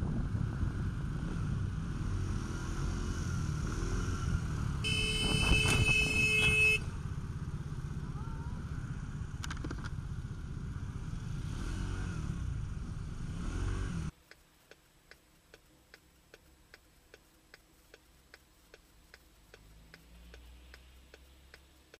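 Motor scooter riding in traffic with steady engine and road noise, and a horn sounding for about two seconds. Then the sound cuts to a quiet car interior with a regular ticking, a little under two ticks a second.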